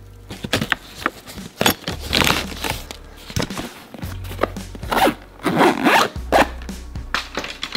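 Zippers on a Wild River tackle backpack being pulled open and shut several times in quick raspy strokes, with sharp clicks and knocks in between, over background music with a steady low bass.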